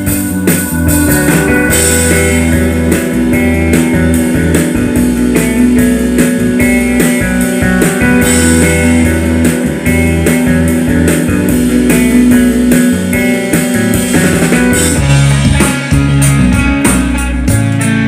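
Loud rock music with guitar, drum kit and a heavy, booming bass line.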